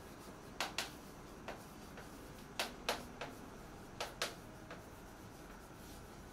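Chalk tapping and clicking against a blackboard as words are written by hand: a series of short, sharp clicks, several coming in quick pairs or threes.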